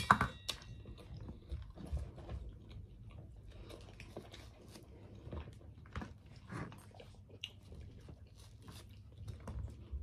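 Close-miked chewing and biting of food, with many small scattered crunches and crackles. A sharp clink with a brief ring sounds right at the start.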